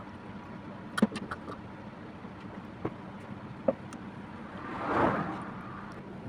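Light plastic clicks and knocks from a brake-fluid suction bleeder's tube and cup being handled at the master cylinder reservoir, a quick cluster about a second in and single clicks after. About five seconds in, a rushing noise swells and fades over a second or so.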